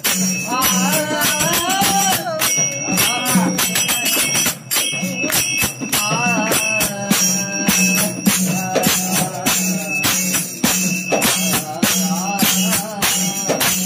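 Marathi devotional bhajan: a voice sings a wavering melody over a steady beat of jingling hand percussion and a pulsing low drum.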